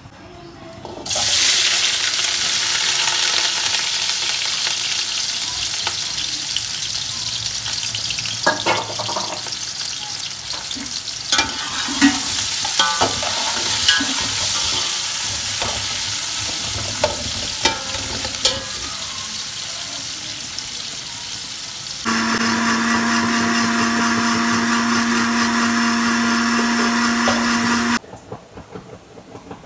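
Sliced onions sizzling loudly in hot oil in a steel pot, starting suddenly about a second in, with a spoon clinking and scraping against the pot as they are stirred. Near the end the sizzle gives way to an electric blender motor running steadily for several seconds, which stops abruptly.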